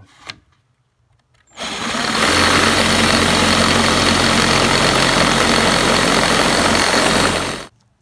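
Electric drill with an 11/64-inch bit drilling out the mushroomed end of a metal door-handle pivot pin. The drill starts about a second and a half in, runs steadily with the bit grinding on the metal, and stops shortly before the end.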